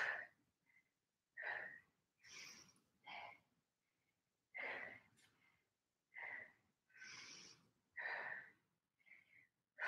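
A woman's faint breathing, heavy with exertion: short, separate breaths in and out, about one a second, while she does lunges holding dumbbells.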